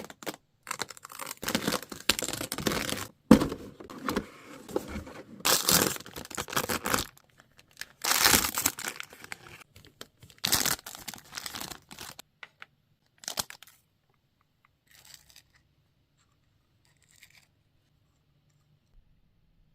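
Toy packaging being torn open and crinkled, in a run of bursts for about twelve seconds, then a few faint rustles.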